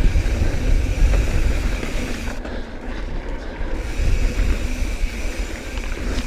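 Wind buffeting the camera microphone while a 2018 Santa Cruz Bronson mountain bike rolls along a dirt singletrack trail, its tyres crunching over the ground with a steady rushing noise.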